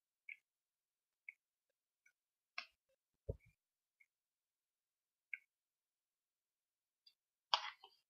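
Faint, scattered mouth clicks and smacks of someone eating brown sugar, with a dull thump about three seconds in and a louder short rustle near the end.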